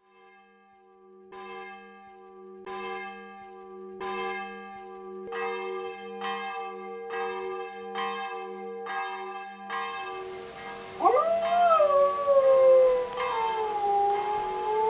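A church bell tolling, struck about once a second with its hum ringing on between strokes. About eleven seconds in, a dog starts howling along: one long howl that rises sharply, then slowly falls, louder than the bell.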